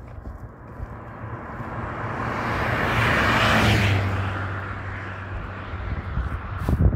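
A motor vehicle passing by: engine hum and road noise swell to a peak about three and a half seconds in, then fade away. A short loud clatter comes near the end.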